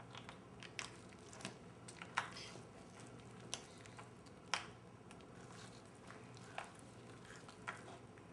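Chinese box turtles biting and crunching monkey chow: a scatter of irregular sharp crunches and clicks, the loudest about two and four and a half seconds in, over a faint steady low hum.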